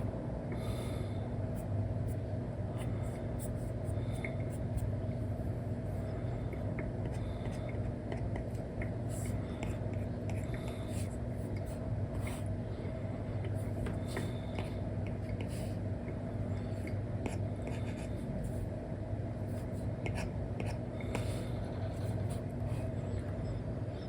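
Apple Pencil fitted with an Elecom nib, tapping and stroking on a paper-like screen film over an iPad: irregular light taps and short scratchy strokes. A steady low hum runs underneath.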